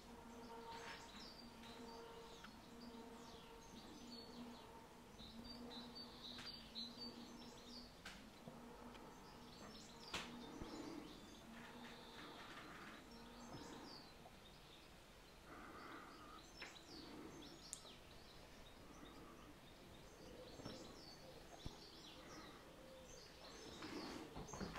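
Quiet room tone with faint, scattered bird chirps and a low steady hum that stops about halfway through.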